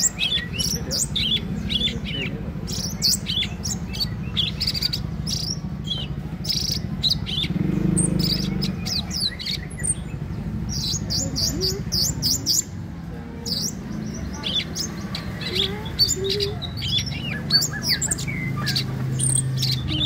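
Orange-bellied leafbird (cucak cungkok) singing a long, fast, varied run of sharp chirps, whistles and quick pitch glides, with hardly a pause. A steady low hum runs underneath.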